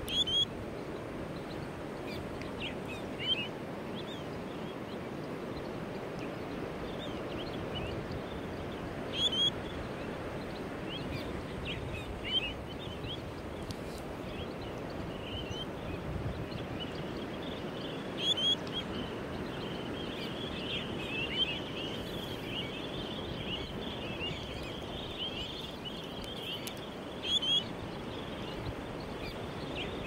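Surf breaking on a reef as a steady low rush of waves, with short high bird chirps scattered throughout, a few louder double chirps standing out and a busier run of chirping in the second half.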